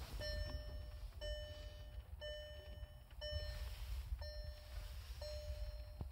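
Car's interior warning chime beeping six times, evenly about once a second, each beep about half a second long, over a low cabin rumble.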